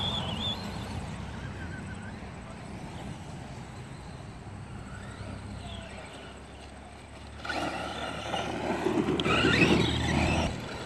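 Radio-controlled off-road truck racing on a dirt track. About seven and a half seconds in, it comes close: its motor whines and rises in pitch while its tyres throw up dirt and gravel. It is loudest near the end, then drops off suddenly.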